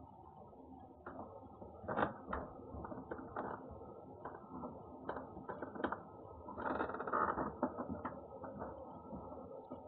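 A cat eating, crunching and chewing its food in irregular clicks and crackles, busiest a little past the middle and trailing off near the end. A faint steady electrical hum lies underneath.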